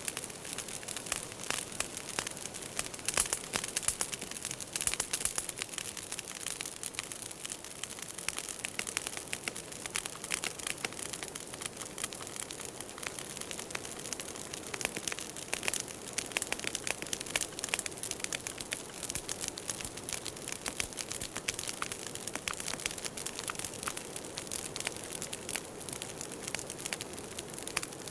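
Firewood burning, with dense, irregular crackling and popping over a steady hiss.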